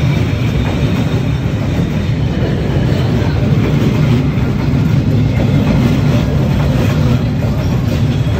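Passenger train coaches rolling past at close range: a steady, loud rumble of steel wheels on the rails.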